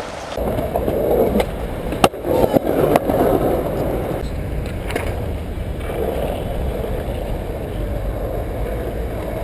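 Skateboard wheels rolling over stone paving, a steady rumble, with a few sharp clacks of the board in the first half.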